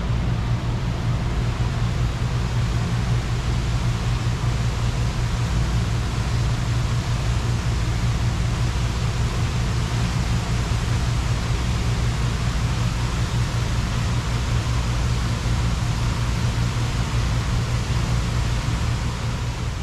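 Steady rushing hiss of a large illuminated fountain's water jets and spray, over a constant low rumble.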